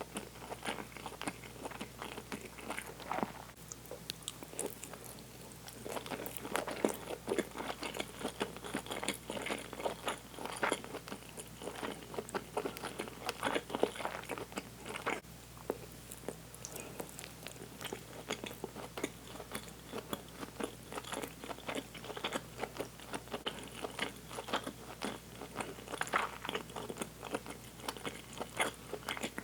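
A person chewing food close to the microphone: a continuous run of short, irregular wet mouth clicks.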